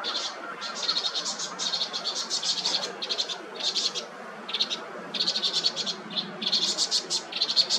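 Vinous-throated parrotbills giving alarm calls: repeated bursts of fast, rattling chips, one burst after another with short gaps between.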